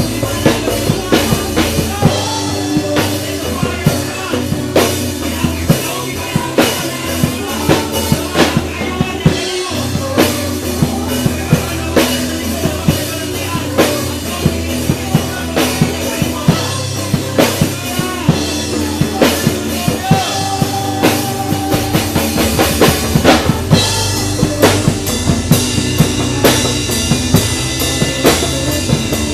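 Worship song played by a band, a drum kit keeping a steady beat with bass drum and snare over a sustained bass line.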